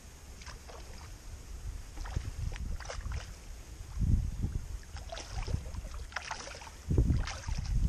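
Water splashing as a hooked carp thrashes at the surface close in beside a landing net, with two heavier low swirls or thuds, one midway and one near the end.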